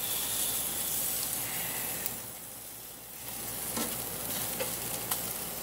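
Chicken thighs sizzling on a gas grill's grate. The sizzle dips briefly near the middle, and a few light clicks in the second half come from the fork knocking the grate as the pieces are turned.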